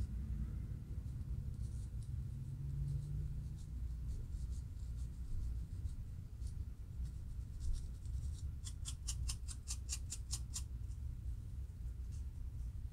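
Fine-tooth metal comb scratching along a dry scalp between loc parts, lifting dandruff flakes: short, scratchy strokes, with a quick run of about five strokes a second from about eight and a half seconds in. A steady low hum lies underneath.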